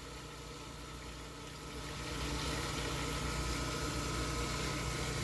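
A 1.5 hp two-speed pool pump running with a steady hum and a faint whine, over the hiss of circulating water. It gets louder about two seconds in.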